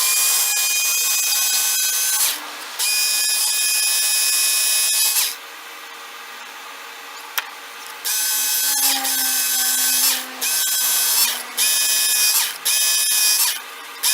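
Work Sharp Knife & Tool Sharpener's small electric belt motor whining in repeated runs as a knife blade is drawn across its 220-grit sanding belt, one sharpening pass per run. Two longer runs, a pause of a few seconds, then several short runs in quick succession.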